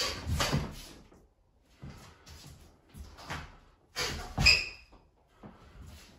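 Footwork on a wooden floor and swings of a wooden short stick during a striking drill, heard as several separate bursts of shuffling and swishing. The loudest is a sharp thump with a brief squeak, about four and a half seconds in.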